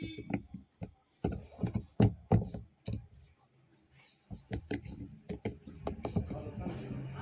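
Irregular plastic clicks, taps and knocks from handling a Jio F320 feature phone and tools during a repair, with a pause in the middle. A low hum comes in near the end.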